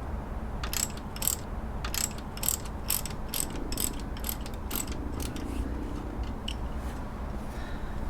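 Ratchet wrench clicking as it loosens the locking bolt on a Subaru alternator bracket: a run of sharp clicks, about two or three a second, that thins out after about five seconds.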